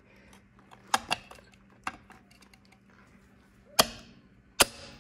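Aftermarket floating wheel center cap being handled and pressed into an alloy wheel's hub, giving five sharp clicks and knocks. Two come close together about a second in, and the loudest is just before four seconds.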